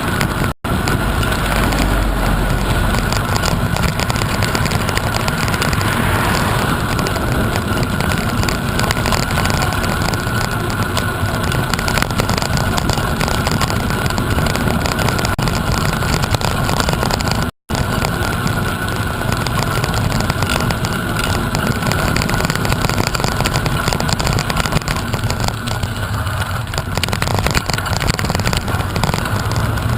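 Wind rushing over the microphone while travelling, a loud steady rush with low rumble that drops out for an instant twice.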